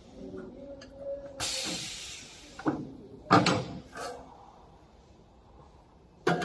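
Electromagnetic sheet metal brake in use: a hissing scrape of sheet metal, then three sharp metal clanks about three seconds in, the middle one loudest. More clanks come near the end as the folded piece is pulled off the machine.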